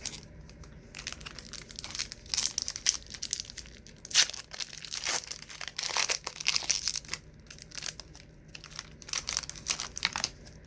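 Wax-paper wrapper of a 1990s trading card pack being torn open and crinkled by hand, in a long run of sharp crackling and tearing sounds.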